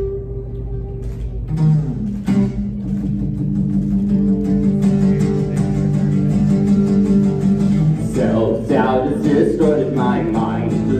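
Acoustic guitar playing an instrumental passage of a song: long ringing chords, which turn busier and a little louder about eight seconds in.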